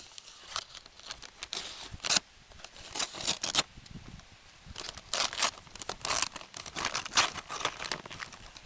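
Cardboard parcel being slit and torn open with a knife: packing tape and cardboard ripping and scraping in a run of short, irregular strokes.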